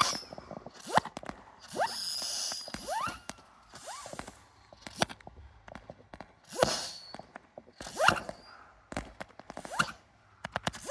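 Fireworks going off: an irregular run of bangs and pops, some with short rising whistles, and a burst of crackling about two seconds in.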